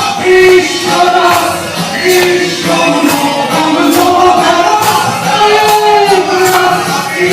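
Music: a voice singing a melody with held, wavering notes over instrumental accompaniment with a steady percussion beat.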